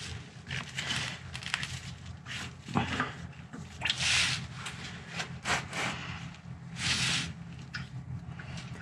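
A gloved hand working the oil filter loose under a Toyota Land Cruiser: scattered scrapes, rustles and small clicks, over a low steady hum.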